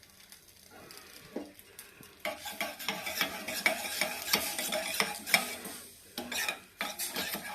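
A spoon stirring and scraping a honey and ginger-juice mixture in a small pan on a gas stove, starting about two seconds in as a quick run of clinks and scrapes.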